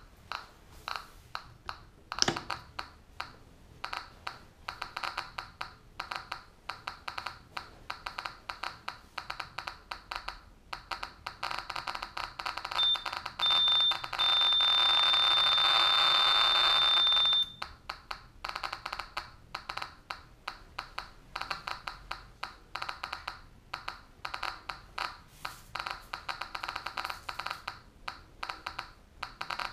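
SV500 Geiger counter with an SBT-10 probe clicking irregularly at background rate. About ten seconds in, the clicks speed up into a dense crackle as a radium-dial (Ra-226) wristwatch is held to the probe, and a high steady warning beep sounds, broken twice, then stops suddenly; the clicks drop back to background rate. A single sharp knock about two seconds in.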